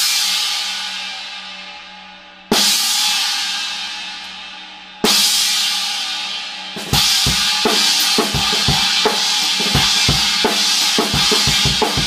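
18-inch Istanbul Mehmet Traditional china cymbal struck alone about every two and a half seconds and left to ring and die away. About seven seconds in, a drum kit beat joins, with bass drum and snare under repeated china cymbal crashes.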